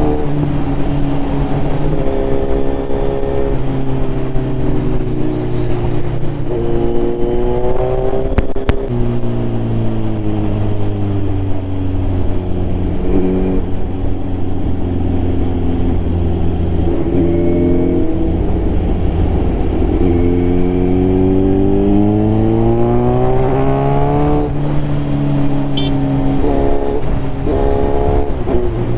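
Kawasaki Z900's inline-four engine through a Mivv carbon full-system exhaust, riding and accelerating through the gears. Its pitch climbs repeatedly and drops at each shift, with stretches of steady cruising in between.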